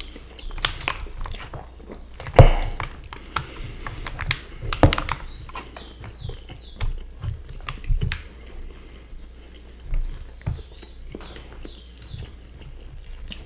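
Close-miked eating sounds: chewing and wet mouth smacks over parmigiana and fries, with clicks and scrapes of a fork and a wooden spoon on aluminium foil trays. Two louder knocks come about two and a half and five seconds in.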